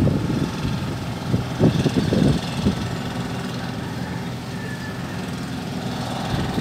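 A steady low engine hum, with irregular gusts of wind buffeting the microphone, heaviest in the first few seconds.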